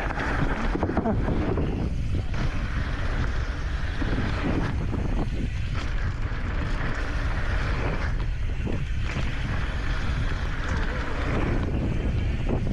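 Wind buffeting the microphone of a mountain biker's action camera during a fast downhill run, over steady rolling noise from knobby tyres on a dirt and gravel trail.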